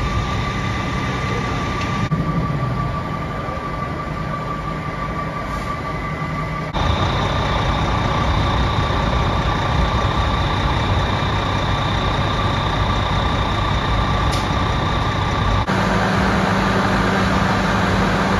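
Fire trucks' diesel engines running steadily, with a steady high whine over the low rumble. The sound shifts abruptly about 2, 7 and 16 seconds in.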